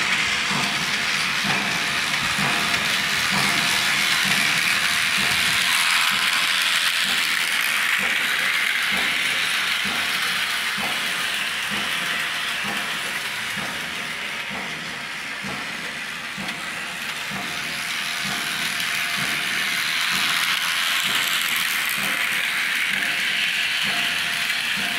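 Model train locomotive running along the track: a steady motor and gear whir with regular clicking of the wheels over the rail joints. The sound dips in the middle and then comes back up.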